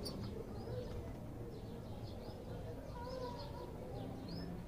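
European goldfinches giving short, high chirping calls at irregular intervals, a few each second, with a couple of lower sliding notes about three seconds in, over a steady low hum.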